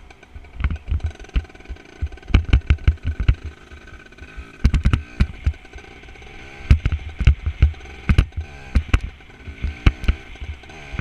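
Motorbike engine running and revving up and down on a rough dirt track, broken by many sharp knocks and low thumps as the bumps jolt the helmet-mounted camera.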